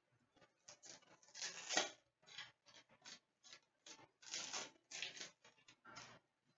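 Cardboard trading cards being handled and slid one behind another in the hand: an irregular string of faint, short papery swishes and flicks.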